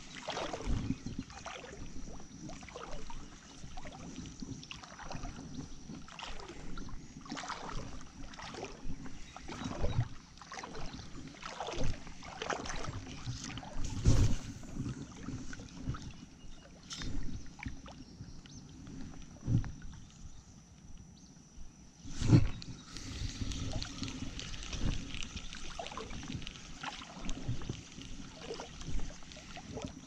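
Creek water sloshing and splashing, with irregular knocks and splashes throughout. The two loudest come about 14 and 22 seconds in.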